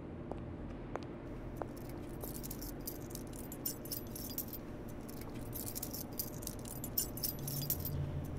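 A bunch of keys jangling and rattling irregularly, starting about a second in, over a low steady hum.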